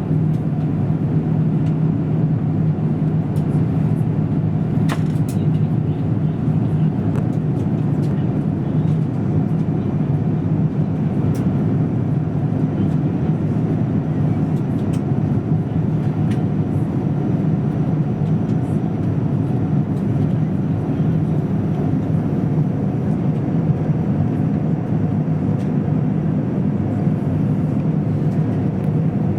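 Steady cabin roar of an Airbus A350 in flight, its Rolls-Royce Trent XWB engines running with a constant low hum, heard from inside the cabin.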